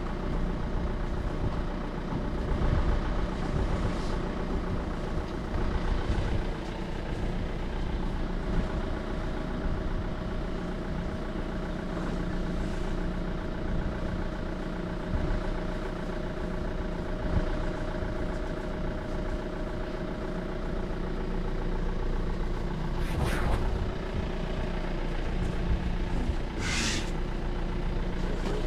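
A motor vehicle's engine idling steadily, with two short hissing bursts near the end.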